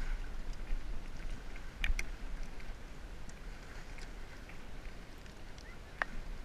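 Steady low wind rumble on the microphone, with a few sharp clicks: two close together about two seconds in and one near the end.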